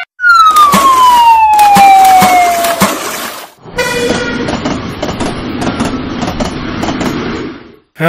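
Cartoon sound effects: a falling whistle that slides down in pitch for about three seconds over a rushing noise. Then, after a brief break, a long stretch of rushing, crackling bubbling noise as the cartoon tram sinks underwater.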